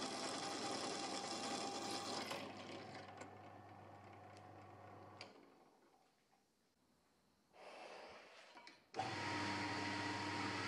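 Drill press running as it bores holes through a steel knife blank, then winding down over a few seconds until it is nearly quiet. About nine seconds in, a belt grinder cuts in abruptly and runs steadily.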